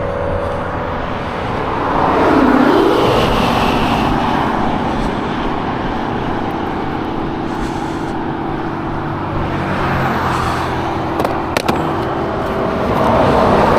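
Road traffic: vehicles passing by in several swells over a steady engine hum, with a few sharp clicks about eleven seconds in.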